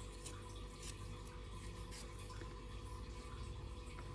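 Fresh ginger root being peeled by hand: a few faint, irregular scrapes over a steady background hiss.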